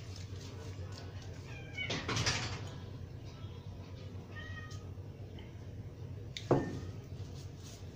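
A cat meowing twice, about two seconds in and again about halfway through, over a steady low hum. A single sharp knock about six and a half seconds in.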